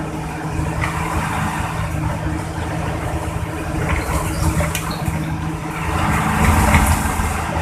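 Intercity bus diesel engine running with a low, snoring exhaust rumble, growing louder about six seconds in.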